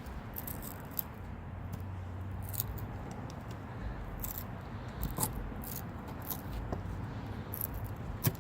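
Leatherman Micra's small blade scraping and carving wood into shavings, in short irregular strokes over a low steady rumble.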